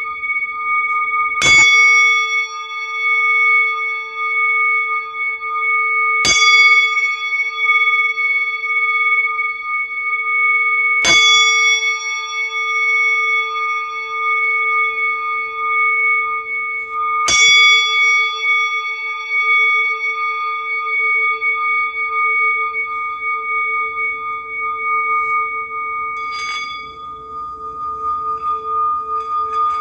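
Singing bowls struck four times about five to six seconds apart, then twice more lightly near the end, each strike ringing on in several steady overlapping tones; the lowest tone wavers in a slow pulse.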